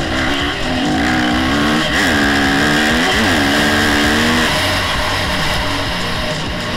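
Motocross bike engine revving as it is ridden, its pitch swooping up and down, dropping sharply and climbing back twice partway through as the throttle is rolled off and on.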